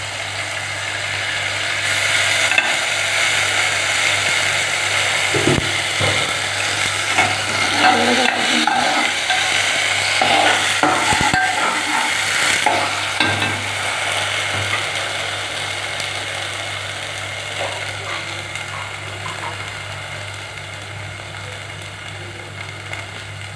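Tomatoes and ginger-garlic paste sizzling in hot oil in an aluminium pot, stirred with a metal spoon that scrapes and knocks against the pot now and then. The sizzle swells a couple of seconds in and dies down gradually over the second half.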